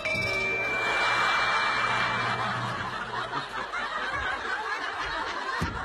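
Audience laughing, loudest in the first two seconds and then tailing off. A steady high tone sounds over the start of the laughter for about two seconds.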